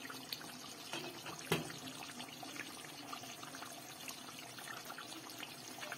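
Chicken karahi gravy simmering in an uncovered pot on the stove: a quiet, steady bubbling with many small pops, and a single sharper knock about a second and a half in.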